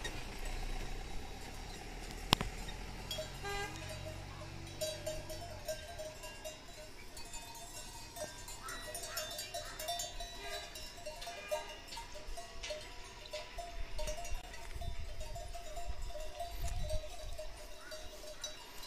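Livestock bells clinking irregularly, a small ringing tone repeating on and off, with a single sharp click about two seconds in.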